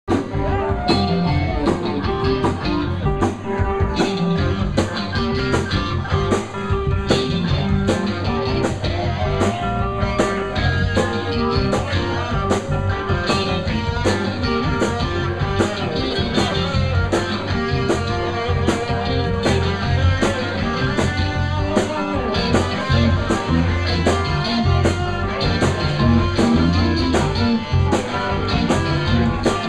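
Live rock band playing, electric guitar to the fore, over a steady beat with a cymbal struck about twice a second.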